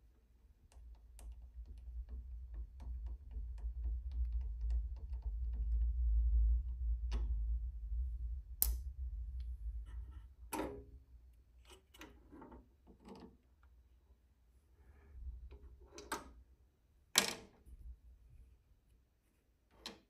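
Glass vacuum tube being worked into a five-pin socket on a tube tester: a dense run of small rapid clicks and scrapes over a low handling rumble. After that come about half a dozen separate, sharper clicks and knocks as plugs and leads are handled on the tester's panel.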